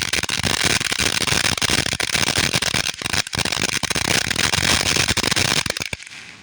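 Consumer firework fountain spraying with a dense hiss and fast crackling, then cutting off suddenly near the end.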